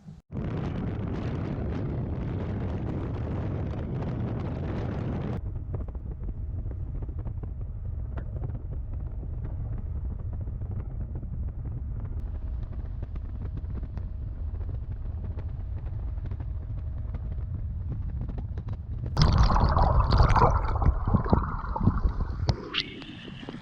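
Wind buffeting the microphone as a steady low rumble, with a louder, rougher gust for a few seconds near the end.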